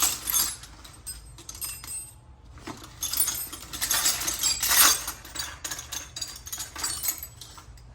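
Small metal tool bits clinking and rattling as someone rummages through a bit set for a Torx (star) bit. The clinking is busiest a few seconds in.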